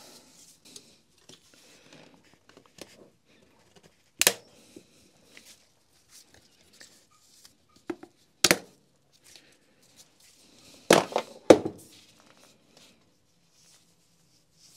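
A large steel retaining ring being worked into its groove on a Makita HR5001C rotary hammer's barrel assembly with circlip pliers. Faint scraping and handling of metal parts, broken by four sharp clicks: one about four seconds in, one about eight and a half seconds in, and two close together about eleven seconds in.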